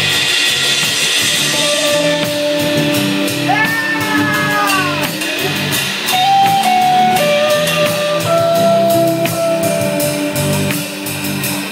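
Live band playing an instrumental break: a lead guitar holds long notes, one bent up and let fall about four seconds in, over rhythm guitars and a drum kit with cymbals.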